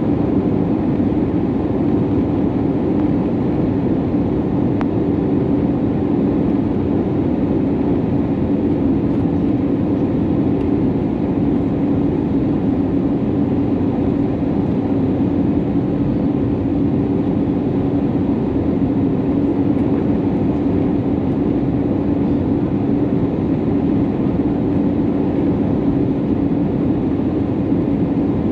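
Steady cabin noise inside an Airbus A320neo during descent, heard from a window seat over the wing: rushing airflow and the drone of its Pratt & Whitney PW1100G geared-turbofan engines, with a steady low hum.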